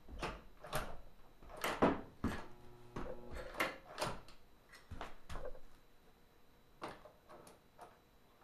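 Irregular clattering knocks and scrapes of metal parts and tools being handled on a sewing machine, some with a brief metallic ring. They are frequent at first and thin out near the end.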